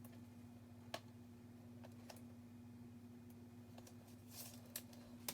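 Quiet handling of a trading card being slipped into a plastic sleeve and top loader: a sharp click about a second in, a few faint clicks, and a brief plastic rustle about four seconds in, over a steady low hum.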